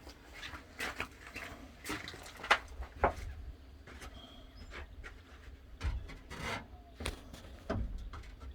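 Irregular clicks and knocks of a 15/16 wrench on the tensioner pulley bolt of a John Deere 566 round baler, metal tool against metal, with a few sharper knocks about two and a half, three and six seconds in.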